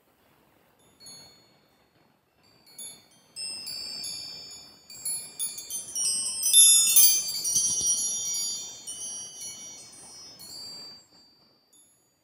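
Metal-tube chakra wind chime ringing: a few light strikes at first, then the tubes clang together in a thickening cluster of overlapping high, bell-like tones that peaks in the middle and fades out near the end.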